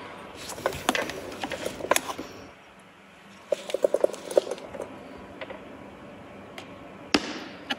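Retaining spring clips on a Mercedes W124 headlamp being levered up off the glass lens, with scattered clicks and scraping, a quick run of small clicks a few seconds in, and a sharp click near the end.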